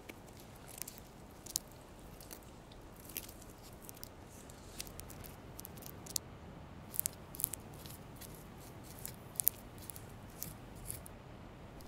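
A fine hand tool picking and scratching at the surface of a marble bust under restoration: faint, irregular little clicks and scrapes, sparse at first and busier in the second half, over a quiet hiss.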